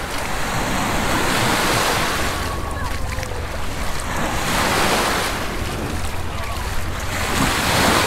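Gentle Mediterranean waves washing up the sand, swelling and fading about three times, with wind on the microphone.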